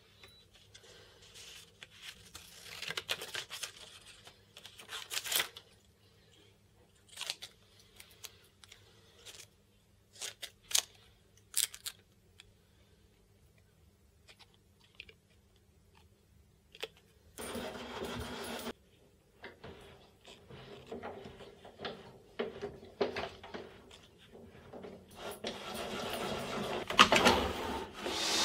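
Scattered light clicks and knocks of hands handling a tripod head's camera mounting plate, then, about three seconds before the end, a table saw's motor starting up and running.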